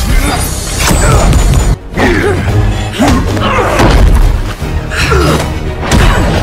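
Action-film soundtrack: loud score music over a fight's heavy thuds, hits and crashes, with a brief drop just before the second second.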